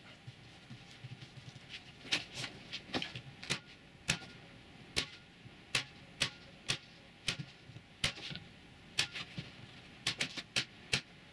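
Handheld staple gun firing staples one at a time into the edge of a wooden board. Sharp clicks start about two seconds in and come about one a second, sometimes two in quick succession.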